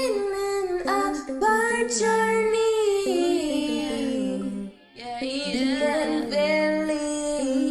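Female voice singing wordless vocal runs and ad-libs, with several sung lines overlapping in harmony and a brief break just before the five-second mark.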